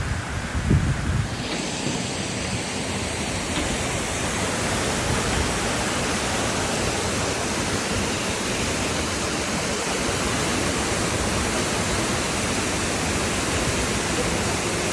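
Steady rush of flowing water with a constant hiss. It turns brighter and fuller about a second and a half in. A few low buffets are heard near the start.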